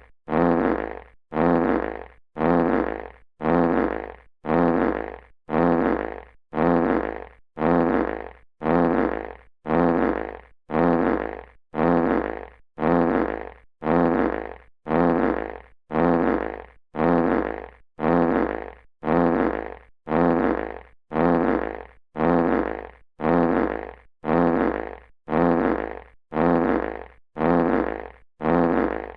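A classic fart sound effect repeated over and over, a little faster than once a second. Each one is a short blast that starts loud and tails off.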